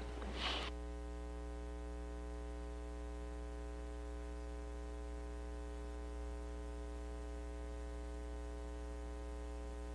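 Steady electrical hum and buzz on the broadcast audio feed, with many evenly spaced overtones over a strong low drone.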